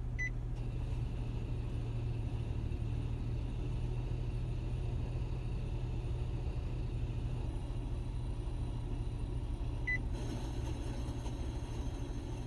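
Mitsubishi eK Wagon's 660 cc three-cylinder engine idling steadily with an abnormal noise, which the uploader traces to the air-conditioning compressor. Two short beeps sound, one at the start and one about ten seconds in, and after the second the sound takes on more high-pitched content.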